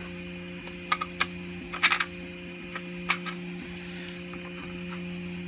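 Scattered light clicks and taps of hard 3D-printed plastic robot-neck parts and a bolt being handled and fitted together, with a quick cluster of them about two seconds in. A steady low hum runs underneath.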